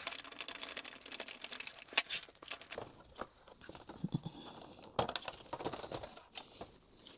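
Scattered light clicks and rustling as small RC car parts are handled, set down and fiddled with.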